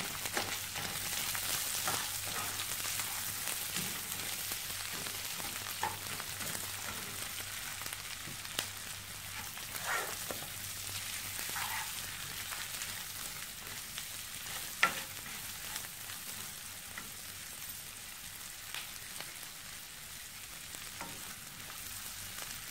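Sliced onions sizzling in butter in a nonstick pan as they are stirred, with scattered scrapes and taps of the spatula on the pan, the sharpest a little past the middle. The sizzle eases gently as the onions cook.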